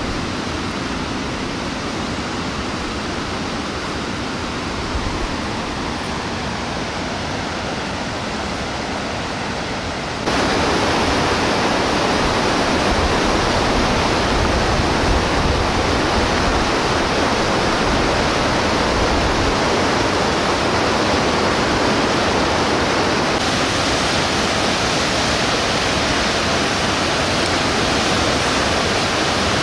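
Rushing mountain river: a steady whitewater rush that suddenly grows louder about a third of the way through and brighter near the end.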